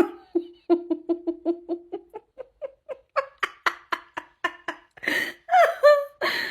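A dog vocalising: a quick run of short yips, about three a second, that climb in pitch, then two or three longer wavering howl-like calls near the end.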